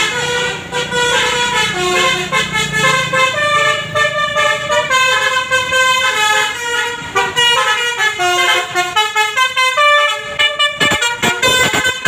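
A coach bus's multi-tone 'telolet basuri' musical horn playing a quick melody, its notes changing pitch several times a second, over low engine rumble in the first few seconds.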